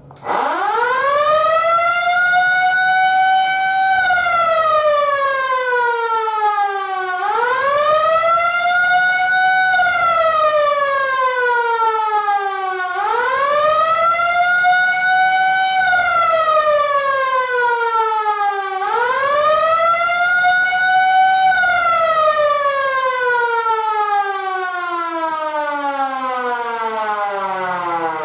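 Small Federal Signal siren sounding the attack signal, a single loud wailing tone. It climbs over a second or two, peaks, then falls over about three seconds, and repeats this four times about every six seconds. Near the end the last fall keeps sinking as the siren winds down.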